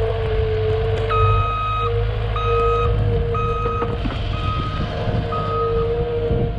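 Vehicle backup alarm beeping five times, about one beep a second, as the machine reverses, over a steady engine rumble with a constant whine.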